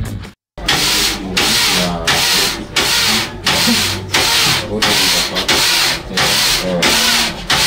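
Hand-operated flat knitting machine worked steadily: the carriage is swept back and forth across the metal needle bed, one rasping stroke of about half a second roughly every two-thirds of a second, after a brief moment of silence at the start. Faint voices underneath.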